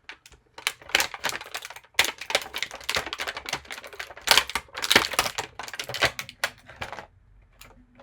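Stiff plastic action-figure packaging being handled: a rapid, irregular run of loud clicks and crackles, easing off near the end.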